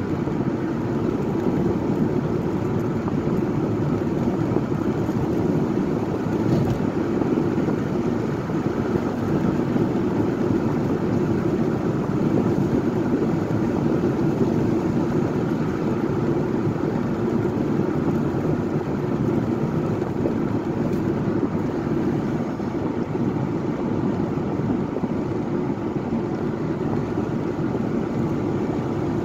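Car driving at a steady speed on a paved road: continuous, even road noise from the tyres and engine.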